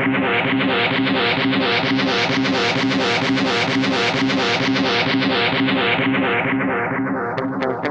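Background music led by a guitar playing fast, evenly repeated notes, the tone growing brighter and then duller again before the pattern changes near the end.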